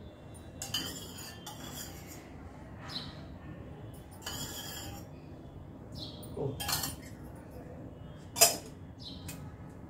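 Steel spoon scraping and clinking against a small steel bowl as ghee is spooned out, in several short bursts, with one sharp clink near the end the loudest.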